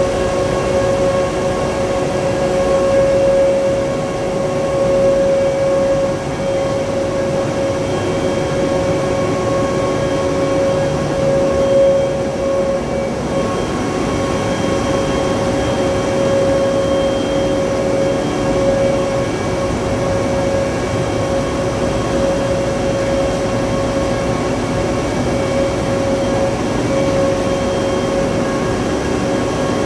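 Heavy industrial machinery running steadily: a loud, unbroken drone with a strong steady hum and rushing noise underneath.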